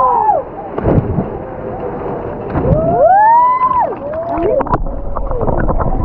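Several people yelling and whooping in long rising-and-falling shouts, overlapping near the middle, with a couple of dull low thumps.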